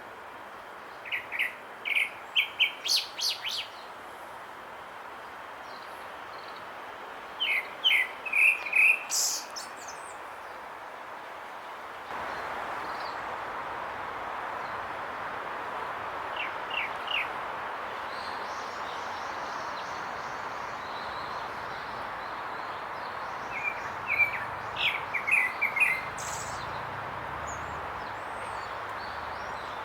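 Grey-backed thrush singing in short phrases of quick high notes, separated by pauses of several seconds, over a steady background hiss that gets louder about twelve seconds in.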